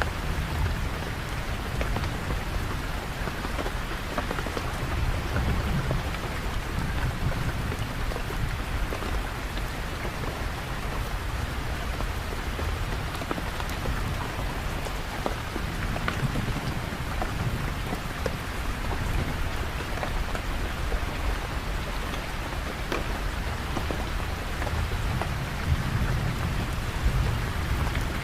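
Steady rain falling and pattering on surfaces, with many fine drop ticks and a low rumble underneath that swells and fades.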